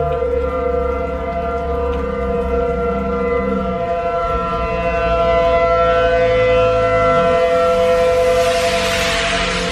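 Outdoor warning siren sounding a loud, steady tone that holds its pitch, with a rush of noise near the end.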